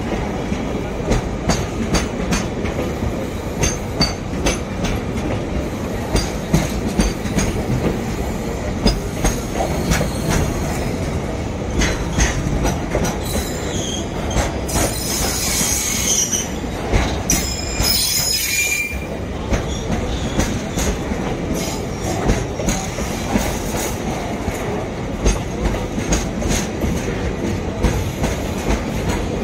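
Freight train wagons rolling past, wheels clacking steadily over the rail joints. About halfway through, a high-pitched wheel squeal rises over the rumble for several seconds.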